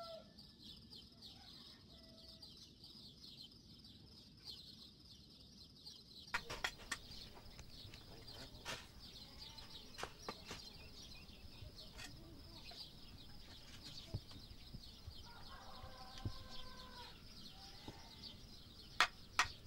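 Farmyard chickens: one calls for about a second and a half about three quarters of the way in, over a steady high chirping. A few sharp knocks sound now and then, the loudest two near the end.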